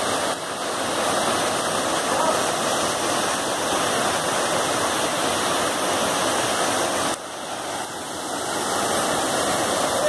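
Waterfall pouring over rocks into a pool: a steady, dense rush of falling water. The level drops suddenly about seven seconds in and builds back over the next two seconds.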